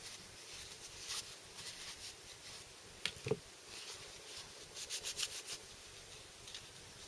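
Tissue paper rustling faintly as hands wipe brake fluid off a split motorcycle brake caliper, with one dull knock about three seconds in as a metal caliper half is set down on the paper.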